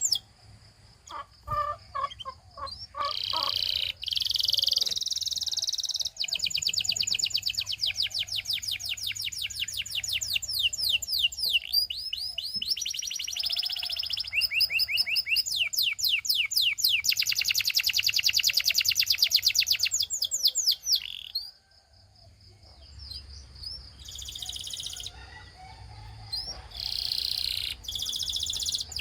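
Canary singing a long song of rapid high trills, rolls of fast repeated notes that change speed and pitch from one phrase to the next, with a few slower lower notes near the start and a short pause about two-thirds of the way through.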